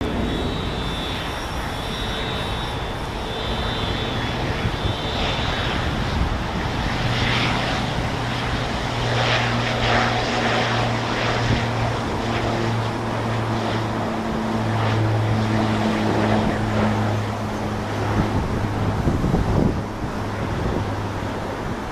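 Pilatus PC-12's single turboprop engine at takeoff power during the takeoff roll and liftoff: a steady propeller drone with a low hum, and a high turbine whine in the first few seconds.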